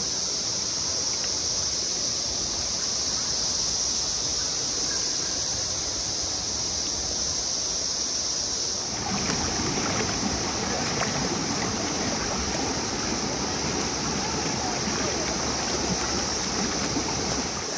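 Patapsco River water rushing and rippling over rocks in a steady wash, growing fuller about nine seconds in. A steady high insect chorus runs over it throughout.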